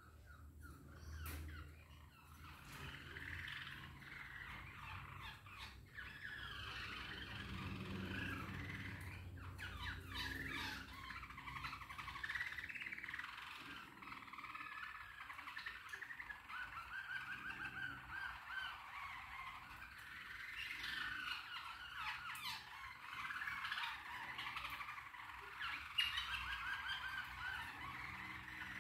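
Caged canary singing a long, continuous warbling song, broken now and then by quick rolling trills.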